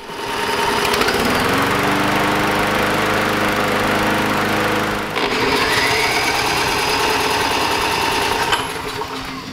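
Small single-cylinder lawn mower engine running: it comes up to speed over the first second or two, then holds a steady speed. There is a break in the sound about five seconds in, and the running dies down near the end.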